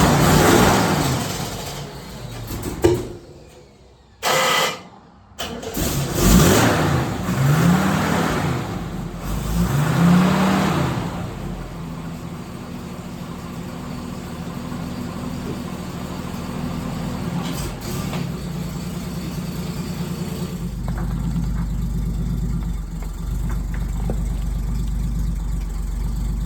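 International AB130 truck engine cranked and started after three or four months standing, firing unevenly at first and catching about six seconds in. It is revved up and down a few times, then settles to a steady idle.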